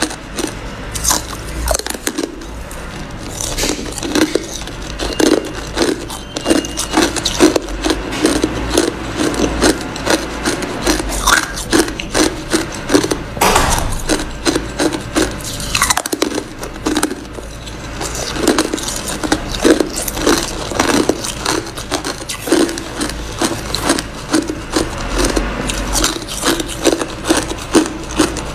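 Ice being bitten and chewed: a person crunching pieces off a hand-held block of hard ice, a dense, irregular run of crisp cracks and crunches.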